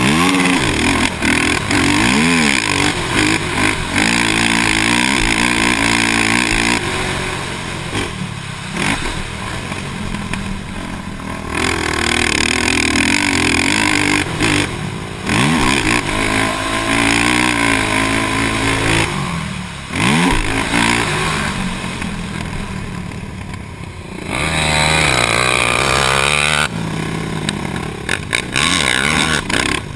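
2006 Honda TRX450R quad's single-cylinder four-stroke engine revving hard under load. Its pitch climbs and drops again many times as the rider accelerates, shifts and backs off over the jumps.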